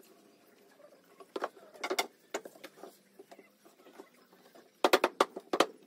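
Wooden pallet boards knocking against each other and the workbench as they are glued and fitted together on dowels. A few scattered knocks come in the first half, then a quick run of sharper, louder knocks near the end.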